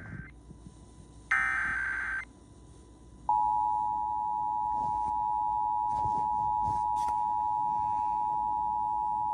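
Emergency Alert System signal for a monthly test. The end of one SAME digital header burst, a harsh buzzy warble, is followed about a second later by another burst. About three seconds in, the steady two-tone EAS attention signal starts and holds loudly.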